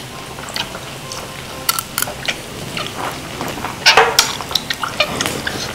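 Chewing of grilled whole beef large intestine (daechang), with short clicks and clinks of spoons and tableware.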